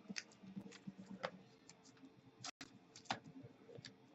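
Faint, irregular clicks and taps of trading cards and their packaging being handled on a table.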